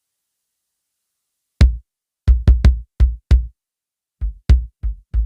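Trigmic Laser Pick electronic drum trigger playing its factory drum samples, recorded direct by line-in. After about a second and a half of silence come some ten single hits in uneven clusters, each a deep thump with a sharp click attack.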